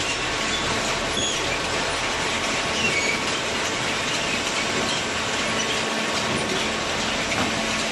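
Waste-paper baler running: a steady, loud mechanical noise with short high metal squeaks scattered through it.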